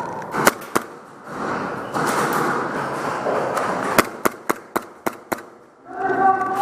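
Airsoft guns firing single sharp shots: two near the start, then a quick run of about six, roughly four a second, a little past the middle.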